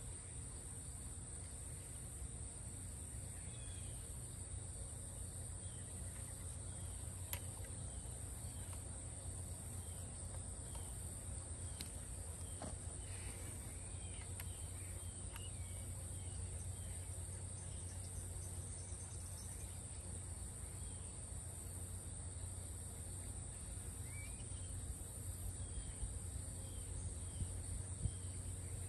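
Steady high insect chirring with a faint regular pulsing above it, and repeated short downward-sliding bird chirps, over a low steady hum. A few faint clicks and knocks come from the hose fitting being handled at the yard hydrant, the loudest near the end.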